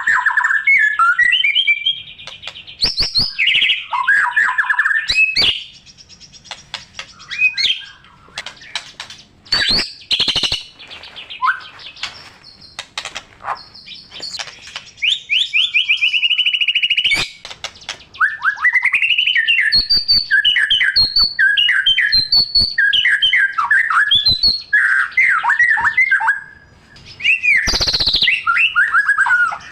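White-rumped shama singing a long, varied song of loud whistles, trills and rapid chattering phrases, the rich imitation-filled song that shama keepers call gacor.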